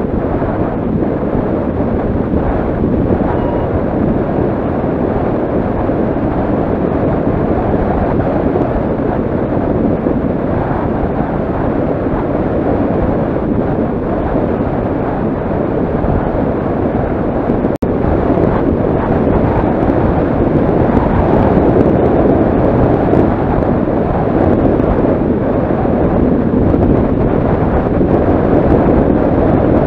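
Loud, steady wind rushing over the camera microphone during a fast downhill descent, growing a little louder in the second half. The sound cuts out for an instant once, a bit past halfway.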